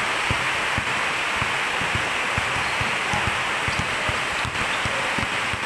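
Basketball dribbled quickly on a concrete court, low thuds about three a second, over a steady hiss of rain.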